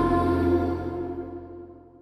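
Ice hockey arena goal horn sounding a steady chord of several fixed tones, fading away over about a second and a half.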